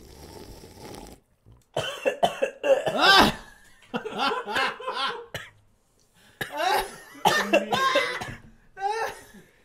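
A person coughing in repeated fits over a first sip of fizzy soda, with laughter mixed in.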